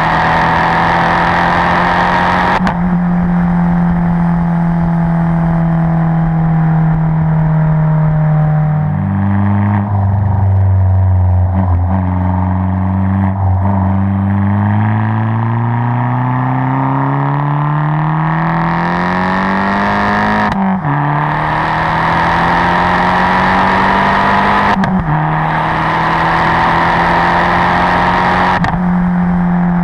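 Abarth 500 esseesse's turbocharged 1.4-litre four-cylinder, with a Garrett 1446 turbo and an aftermarket Caroleo exhaust, running hard inside the cabin. The note holds steady, drops lower about nine seconds in, then climbs steadily for several seconds under acceleration, with short breaks where the pitch steps.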